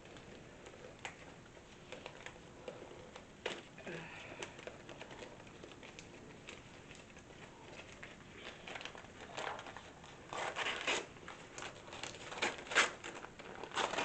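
Gift wrapping paper crinkling and rustling as a present is unwrapped. Scattered rustles at first, then denser, louder crinkling over the last few seconds.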